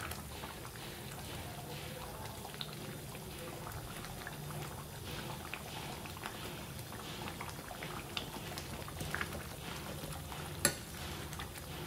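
Chicken curry gravy simmering in a pot, bubbling with many small pops. A single sharp click comes near the end.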